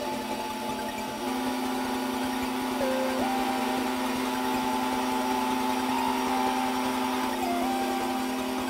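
Small desktop CNC mill milling a plastic Hammond enclosure: the spindle runs with a steady hum while a higher motor whine steps down and back up in pitch a few times as the cutting moves change.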